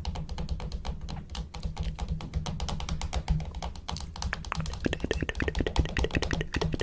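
Rapid tapping clicks, several a second, over a steady low hum.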